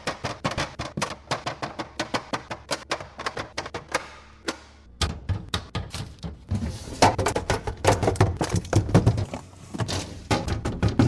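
Plastic containers and food items being handled and set down on fridge shelves: a quick, irregular run of clicks and taps, with heavier knocks and rustling from about halfway through.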